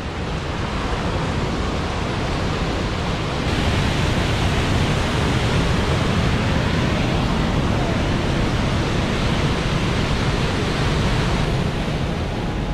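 Mountain torrent rushing through a narrow rock gorge: a steady, full rush of white water that grows louder about three and a half seconds in.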